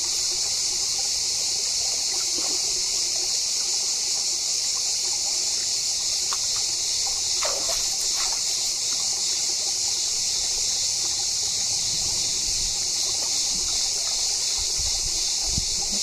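Shallow rocky stream trickling, a steady even hiss of running water.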